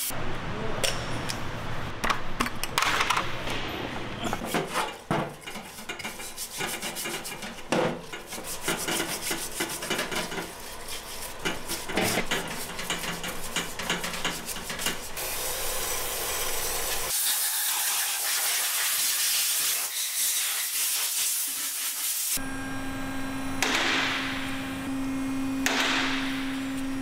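Many sharp clicks and metal knocks as bolts are worked on an engine's flywheel with a cordless impact wrench. Later comes a stiff brush scrubbing an oily engine part in a parts-washer sink, a steady hiss, and a steady hum over the last few seconds.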